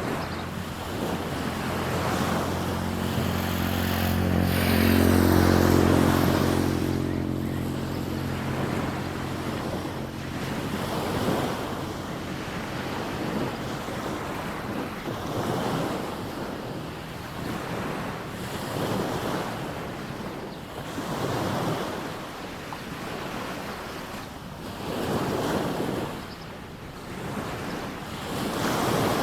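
Small sea waves washing onto a sandy beach, each surge swelling and falling back every few seconds. For the first ten seconds a low motor hum rises, is loudest around five or six seconds in, then fades out.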